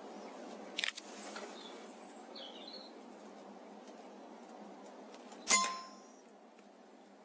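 A sharp click about a second in, then a louder sharp crack with a brief ringing tail about five and a half seconds in, typical of a sub-12 ft-lb air rifle being fired. Birds chirp in between.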